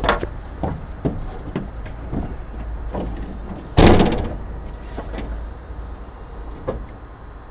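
A run of footsteps on concrete, then, about four seconds in, the lorry's cab door is slammed shut with a loud bang.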